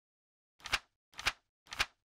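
Three sharp clicks, evenly spaced about half a second apart, each a quick double tap.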